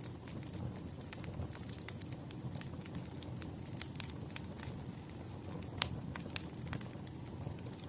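Burning firewood crackling: a steady low rumble of the fire with irregular sharp pops and snaps, the loudest a little before six seconds in.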